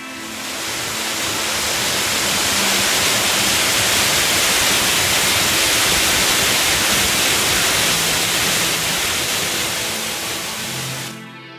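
A waterfall's white water pouring over rocks in a steep gill: a loud, steady rush of water that fades in at the start and fades out about eleven seconds in.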